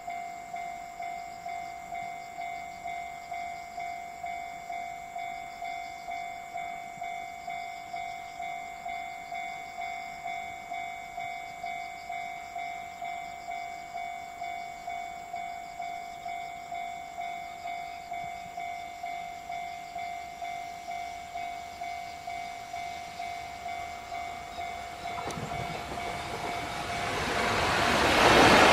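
Japanese level-crossing warning bell ringing steadily, about two strikes a second. In the last few seconds the rising rumble of an approaching freight train, led by a JR Freight EF210 electric locomotive, grows loud and becomes the loudest sound.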